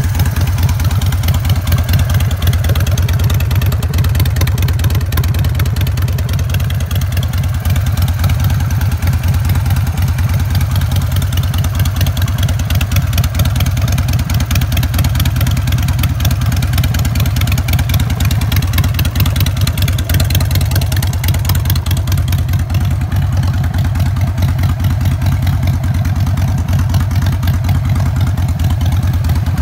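A 2002 Harley-Davidson Sportster 883R's air-cooled 883 cc V-twin idling steadily through aftermarket short shot exhaust pipes.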